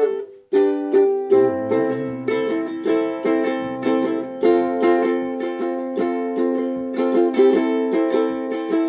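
Solo ukulele playing an instrumental passage, a steady run of plucked notes and chords. The sound breaks off for a moment about half a second in, then resumes.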